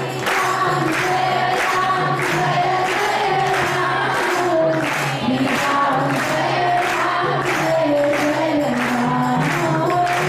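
Group singing of a devotional song over a steady percussion beat, the melody rising and falling in long held notes.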